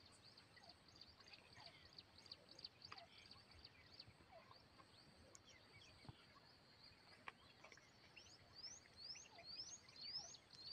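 Faint small birds chirping in the open; late on, one bird repeats a thin rising whistle about twice a second.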